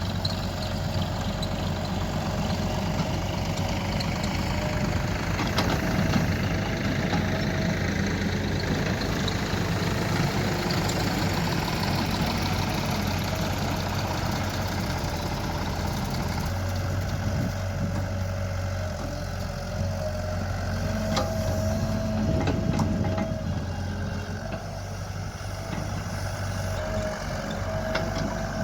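Diesel engines of a backhoe loader and tractors running steadily: a low, even hum with a steady high whine over it. A few sharp clicks and knocks come about three-quarters of the way through.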